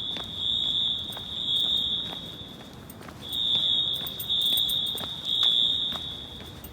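Wheelock AS horn strobes of a Notifier fire alarm system sounding together: a very loud, high-pitched horn tone that swells and fades in long pulses, with a short break about three seconds in. The sound echoes through the parking garage.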